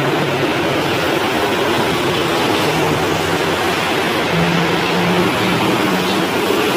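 City street traffic: cars passing on a wet road, a steady hiss of tyres with a low hum of engines.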